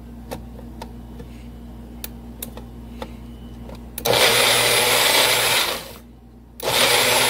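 Countertop blender blending a thick homemade sauce, run in two pulses: it starts about four seconds in, runs loud for nearly two seconds, stops briefly, then starts again. Before it, a few light clicks of the jar and lid being handled.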